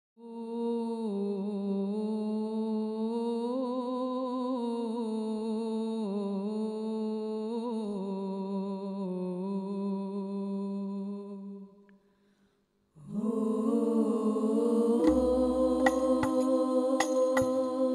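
Women's voices of a hadrah banjari group singing an unaccompanied shalawat melody in long, slow, ornamented held notes. The voices break off for about a second two-thirds of the way through, then resume, and near the end hand-struck frame drums (rebana) come in with sharp strikes and a low thump.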